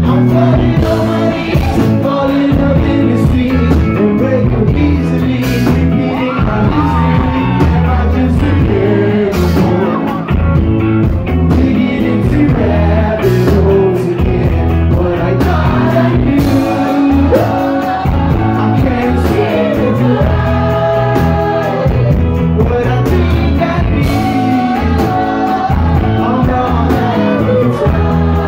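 Live rock band playing: a lead vocal sung over electric bass, guitar and a drum kit, loud and continuous.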